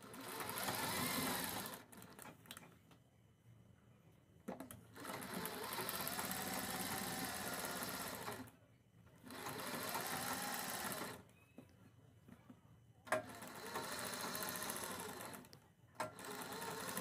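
DIYA-brand domestic sewing machine stitching through cloth and buckram, running in five short spells of one to three and a half seconds with pauses between them as the work is guided along the seam.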